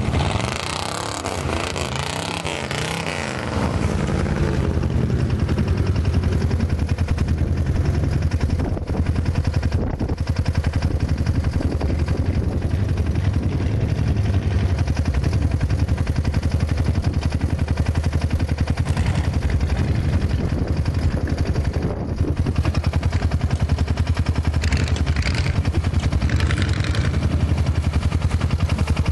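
Truck engine revving up and down for the first few seconds, then running hard and steady with a rapid, even exhaust pulse.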